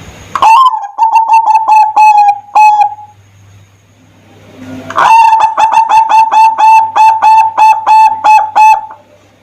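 Zebra dove (perkutut) singing: two bouts of rapid staccato cooing notes, a short bout and then a longer run of about four seconds.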